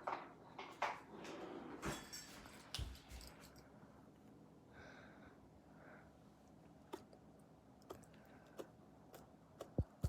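Slime being handled and mixed by hand: soft squishing in the first few seconds, then scattered light clicks and taps.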